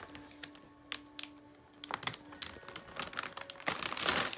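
Plastic snack bag of Pretzel Crisps crinkling as it is pulled and torn open by hand: scattered crackles that grow dense near the end.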